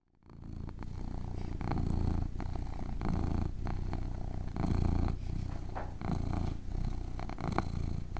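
A kitten purring close to the microphone: a deep, continuous purr that swells and eases every second or two, with a few faint clicks.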